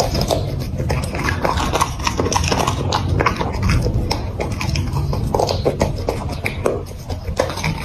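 Golden retriever chewing raw broccoli close to the microphone: a quick, irregular run of crunches and wet mouth clicks over a steady low rumble.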